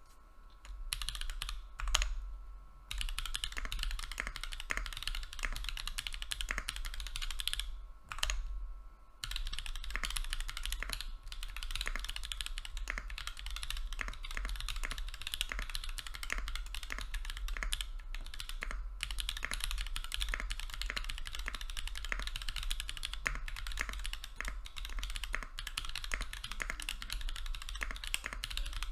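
Continuous fast typing on a Monstargear Sangeo65 mechanical keyboard with lubed Holy Panda tactile switches in Kiwi bottom housings and JTK Night Sakura keycaps. The typing stops briefly twice, about two and eight seconds in, each time just after a louder keystroke.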